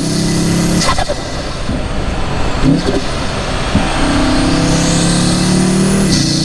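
Audi RS3's turbocharged 2.5-litre five-cylinder accelerating hard. There is a sharp break in the engine note just under a second in, like a gear change. The engine then pulls again from about four seconds, rising in pitch with a faint rising high whine, until another break near the end.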